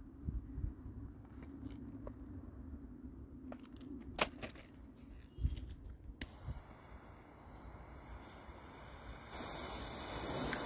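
Scattered handling clicks and knocks, then a sharp click about six seconds in as a jet torch lighter ignites and hisses steadily. Near the end the hiss grows louder as the firecracker fuse catches and fizzes.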